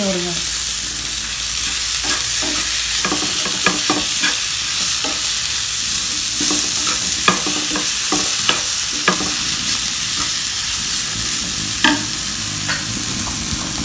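Wooden spatula stirring and scraping grated coconut and chopped vegetables in a non-stick frying pan, over a steady sizzle of frying. Frequent light clicks and scrapes of the spatula on the pan.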